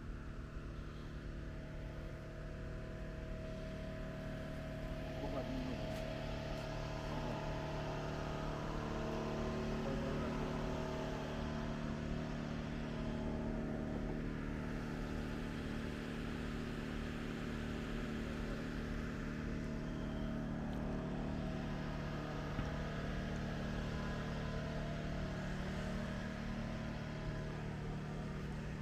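An engine running steadily at an even speed, a low hum that holds its pitch and grows a little louder about eight seconds in.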